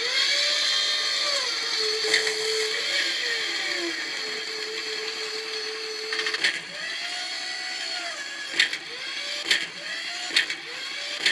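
Robotic servo whirring and clanking sound effects played by a Mega Stomp Panic motion-triggered soundboard: whines that rise and fall in pitch, with sharp clanks near two seconds in and several more in the second half.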